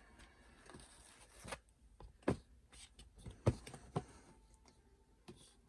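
Cardboard and plastic packaging being handled: several short knocks and taps with light rustling, the loudest knock about three and a half seconds in.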